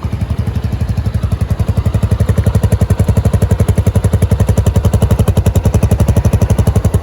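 Gilera YL200's single-cylinder, air-cooled four-stroke engine idling steadily, with an even, rapid pulsing beat.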